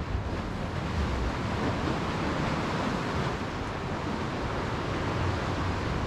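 Sea waves washing against the concrete tetrapods of a breakwater, a steady rushing noise, with wind rumbling on the microphone.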